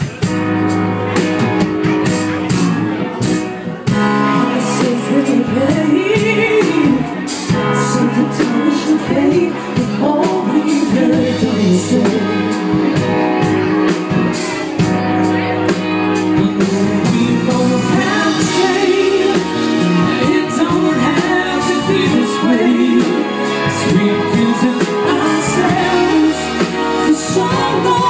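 Live band playing a pop-rock song with a woman singing lead over electric guitar, keyboard and drum kit.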